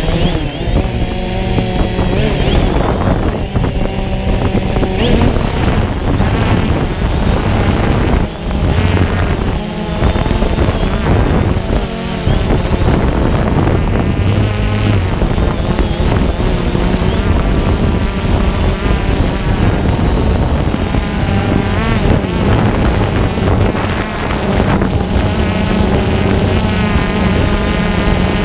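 DJI Phantom 2 quadcopter's four brushless motors and propellers whirring up close, heard from on board as it lifts off and hovers; the buzzing pitch drifts up and down as the motors change speed.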